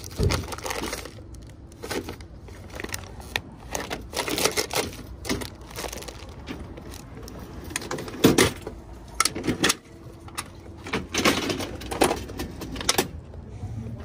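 Rummaging through spare contactors and parts boxes: irregular clatter, rustling and knocks of parts being handled, the loudest knock a little past the middle.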